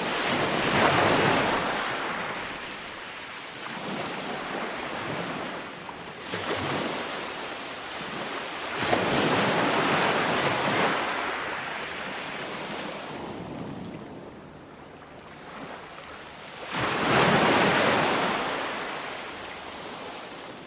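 Ocean waves breaking on a shore. Three swells peak, near the start, about nine seconds in and about seventeen seconds in, each dying away into a softer wash of surf.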